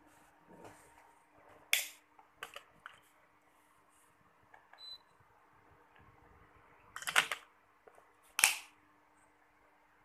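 Several sharp clicks and knocks, the loudest a cluster about seven seconds in and a single one about a second later, over a faint steady hum.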